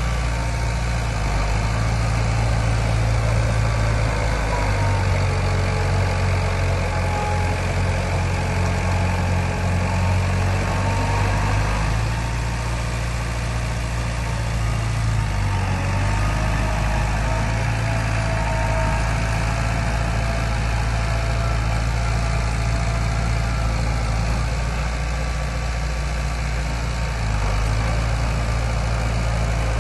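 Diesel engine of heavy earthmoving equipment running steadily, its low note shifting a few times with the load, and a faint whine rising and falling now and then.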